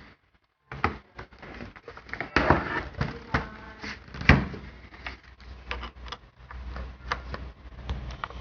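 Irregular clicks, taps and scraping of a laptop's plastic case being handled during disassembly, with one sharper knock about four seconds in.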